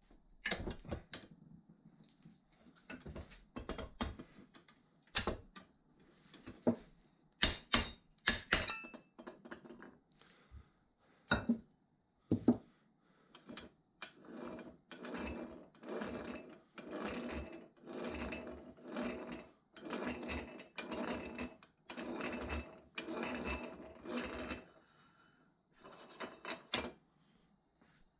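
Clicks and knocks of hand work on metal parts, then a run of about a dozen even strokes, a little over one a second.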